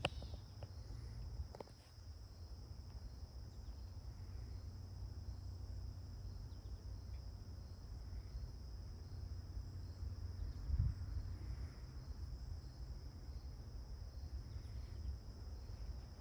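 Steady high-pitched chirring of an insect chorus, over a steady low rumble, with one dull thump about eleven seconds in.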